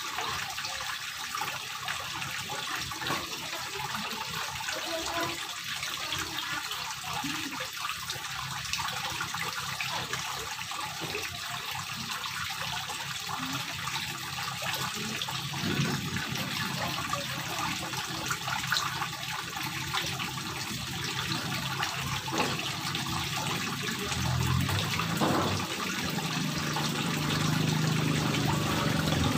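Water trickling steadily down a stone water-wall fountain and splashing into a small pond basin. A low rumble joins it and builds over the last few seconds.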